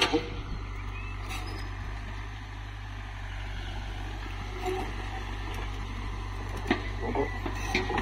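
Hyundai tracked excavator's diesel engine running steadily while it works its boom on the rail track, with a couple of short sharp knocks near the end.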